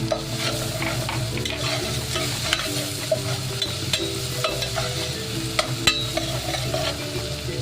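Chopped onion sautéing in butter and garlic in a pan, sizzling steadily, while a utensil stirs it with frequent clicks and scrapes against the pan; the sharpest knock comes near six seconds in.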